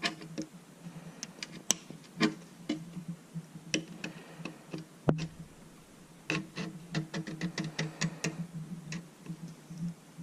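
A blade scribing a panel line into a hard ABS plastic RC car body with repeated passes: irregular light ticks and short scrapes, thickest in the second half.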